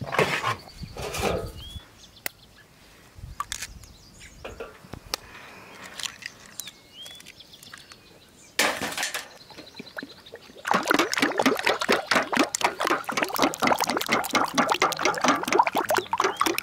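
Eggs cracked open with a few small sharp clicks, then beaten fast with a fork in a metal bowl: a quick, steady run of clinks and sloshing from about eleven seconds in.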